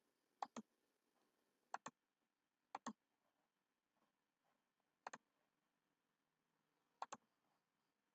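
Five sharp clicks, each a quick pair of strokes, spaced one to two seconds apart over near silence.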